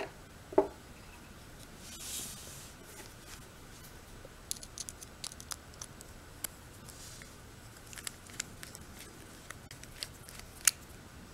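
Small metal clicks and light scraping of a screwdriver working a small screw into a lawn-mower carburetor body, with carburetor parts handled in the fingers. A sharp click comes under a second in and another near the end, with faint scattered ticks and a short soft rustle about two seconds in.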